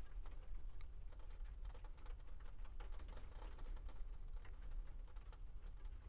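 Quiet room tone: a steady low hum with faint, scattered small clicks.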